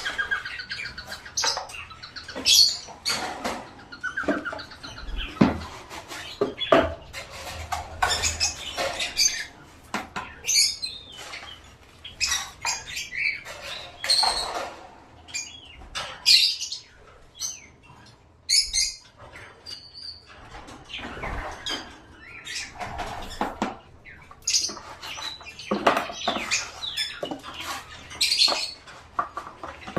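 Small caged birds chirping and squawking in short, irregular calls, mixed with frequent clicks and scratchy rustling.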